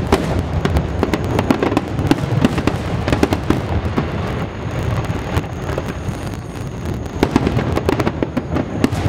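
Aerial fireworks display: many sharp bangs and crackles from bursting shells in quick succession over a continuous low rumble, thinning out briefly in the middle before picking up again.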